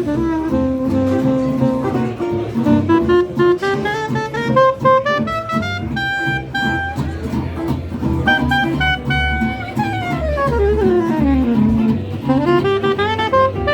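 Jazz instrumental music: a lead instrument plays quick runs of notes over a steady bass and chordal backing. About ten seconds in, a long run falls and then climbs back up.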